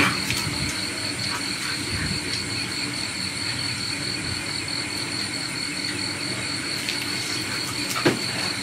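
Night-time insect chorus, crickets trilling in a steady high drone, with a single short click near the end.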